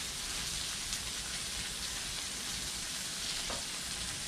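Steady sizzle of a flap steak and husk-on corn cooking on a hot Blackstone flat-top griddle.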